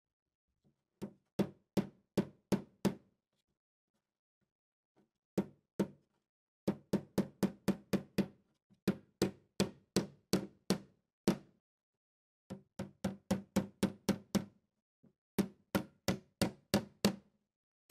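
Hammer striking repeatedly in bursts of rapid blows, about two to four a second, with short pauses between the bursts.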